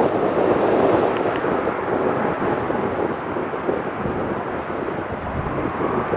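Airbus A321-200 jet engines heard as a steady rush of noise, with wind buffeting the microphone.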